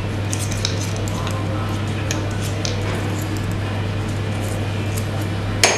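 Light clicks and clinks of small steel fuel-injection-pump parts being handled by hand, with one sharper click near the end, over a steady low hum.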